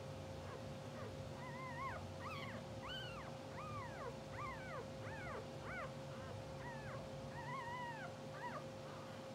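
Newborn English bulldog puppies whimpering and squeaking: about ten short, high cries that rise and fall in pitch, starting about a second and a half in, one near the end drawn out longer. A steady faint hum runs underneath.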